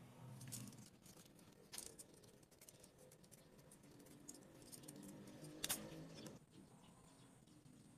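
Faint light clicks and taps of wooden popsicle sticks and a plastic utility knife being handled and set down on a wooden board, with the sharpest click a little before six seconds in.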